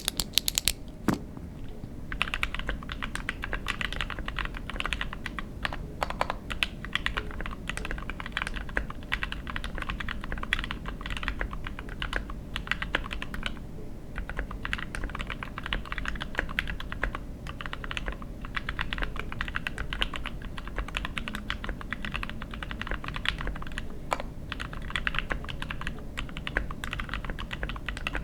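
Continuous typing on a KBDfans Tofu 60% mechanical keyboard with lubed Gateron Ink Black V2 linear switches on a carbon fibre plate, dampened by plate and case foam. There are a few separate keystrokes first, then steady fast typing from about two seconds in, with short pauses.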